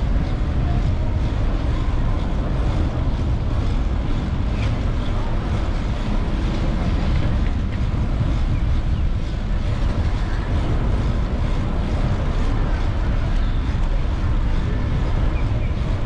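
Wind buffeting the camera microphone of a moving bicycle: a steady low rumble.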